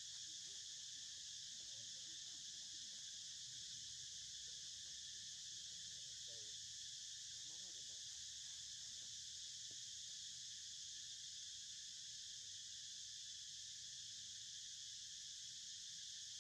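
Faint, steady, high-pitched insect chorus droning without a break.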